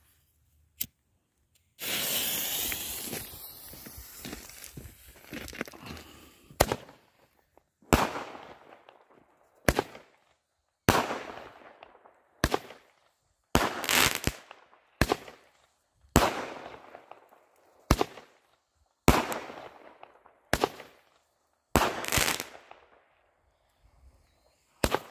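A 200-gram consumer firework cake ('Cover Yo Ears') going off. After lighting there is a hiss for about four seconds, then it fires about fifteen shots, roughly one every second or so. Each shot breaks with a bang that trails off in crackle.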